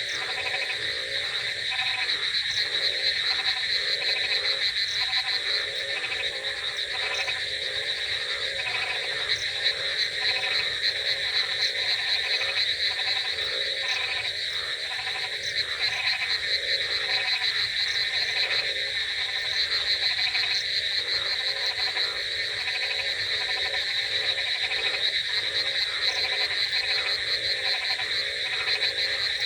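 A dense chorus of frogs croaking, with many overlapping calls repeating several times a second over a steady high-pitched trill.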